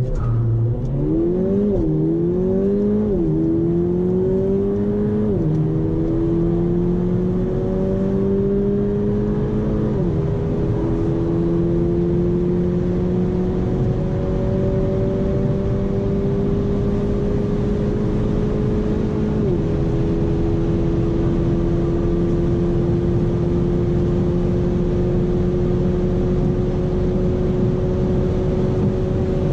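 Mercedes-AMG A45's 2.0-litre turbocharged four-cylinder engine under full-throttle acceleration from a standstill to about 240 km/h, heard from inside the cabin. The engine pitch climbs in each gear and drops at five quick upshifts: three within the first five seconds, then one at about ten seconds and one at about twenty seconds in. Each higher gear is held longer, and its pitch rises more slowly.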